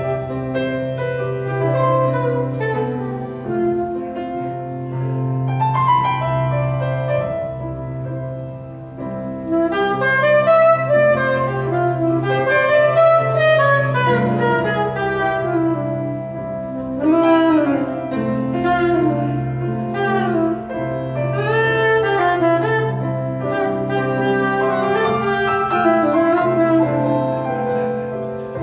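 Live jazz: a saxophone improvising quick runs of notes over piano accompaniment.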